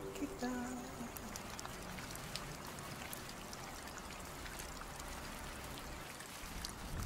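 Rain sound effect: an even patter of rain with scattered drop ticks, after the last ukulele and sung notes fade out in the first second. A low rumble swells near the end.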